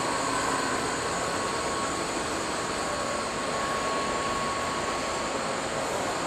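Steady background noise of a large exhibit hall, an even hum and hiss with a faint thin whine in it.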